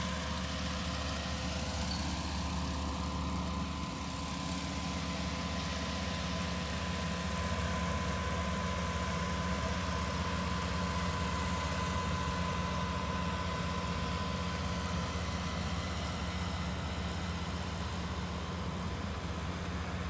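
Rice combine harvester running steadily as it cuts a ripe paddy, an even engine hum.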